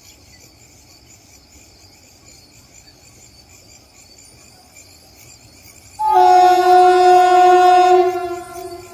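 Indian Railways locomotive air horn sounding one long blast of about two seconds. It starts suddenly about six seconds in, with a brief higher note at the onset, then holds steady and fades away with an echoing tail.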